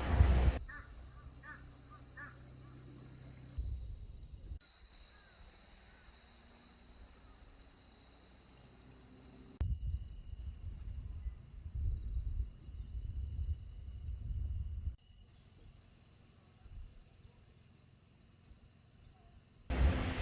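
A crow cawing a few times about a second in, over quiet outdoor ambience with a faint steady high hiss. Later come spans of low rumble.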